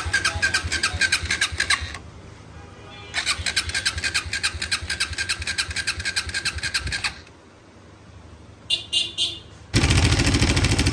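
Suzuki GSX-R motorcycle's electric starter cranking the engine in two long, rapidly ticking bursts with a whining tone, a pause between them, then the engine catches about ten seconds in and runs. The engine's camshaft and cam bearing surfaces in the head are worn from oil starvation, as its missing oil seal had cut the oil supply.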